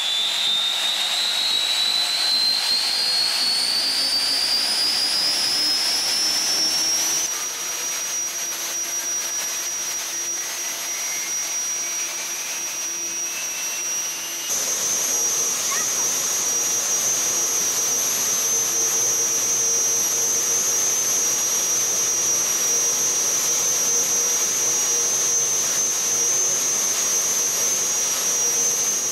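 Twin gas-turbine engines of a turbine-powered offshore powerboat spooling up: a high whine rising steadily in pitch for the first several seconds, then holding at a steady high whine that gets louder about halfway through.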